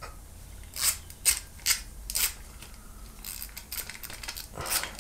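The main jet's nut being tightened lightly into a Weber 26 IMB carburettor body with a hand tool: a series of short, sharp metal clicks and scrapes at an uneven pace.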